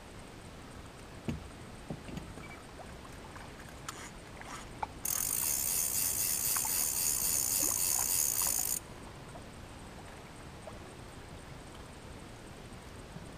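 Fishing reel cranked fast to bring in a hooked crappie: a steady high whir that starts suddenly about five seconds in and stops sharply about four seconds later. A few light knocks of gear being handled come before it.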